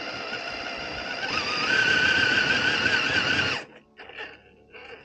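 Electric motor and gear drive of an RC scale crawler whining under throttle. It rises a little in pitch over a second in, cuts off suddenly after about three and a half seconds, and is followed by two short blips of throttle.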